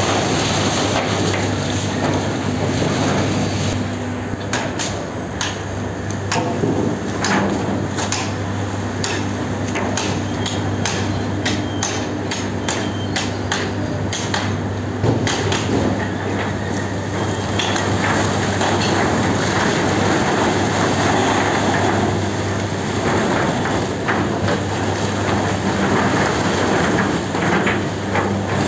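Sugar cane unloading and conveyor machinery running with a steady low hum. A run of sharp metallic knocks and clanks comes from about 4 to 15 seconds in.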